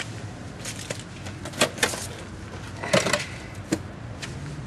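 Removed steel Jeep TJ front fender being handled and lifted onto its edge: a few sharp knocks and clanks. The loudest come about three seconds in, with a brief metallic ring.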